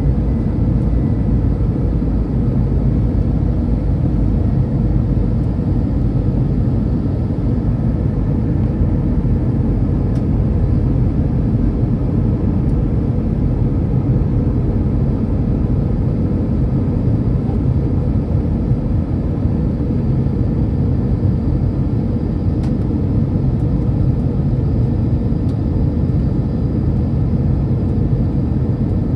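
Airbus A319 cabin noise from a window seat over the wing on descent to landing: a steady deep rumble of jet engines and airflow with a faint steady hum through it.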